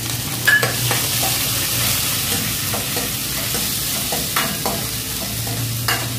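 Grated garlic, ginger and green chilli sizzling in hot oil in a stainless steel kadai, being fried for a tadka, while a steel ladle stirs and clinks against the pan several times.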